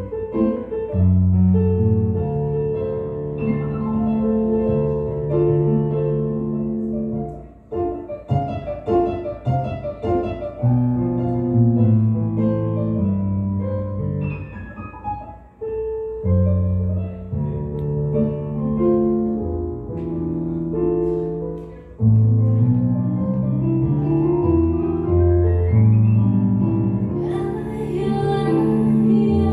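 Nord Electro 6 stage keyboard on a piano sound, playing a slow instrumental passage of held chords over a low bass line. The sound grows brighter and fuller near the end.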